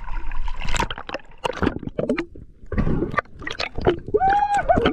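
Sea water sloshing, gurgling and splashing around a camera held at the waterline as small waves wash over it, in irregular bursts. A brief wavering tone sounds near the end.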